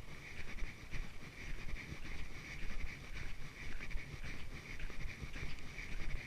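A dog panting in quick pulsing breaths while walking, over uneven low thuds of footsteps and handling rumble from the walker's camera.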